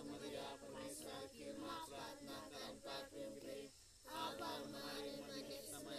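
A group of adults and children singing together without instruments, with a brief pause partway through.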